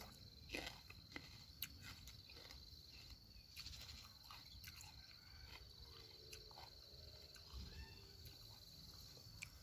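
Faint crunching and chewing of a raw orange mini sweet pepper (snack pepper): a few crisp bites, then softer chewing. A steady high insect trill runs underneath.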